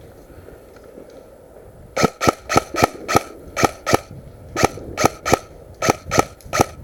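Airsoft gun firing about a dozen sharp single shots in quick strings of two to four, roughly three shots a second, starting about two seconds in.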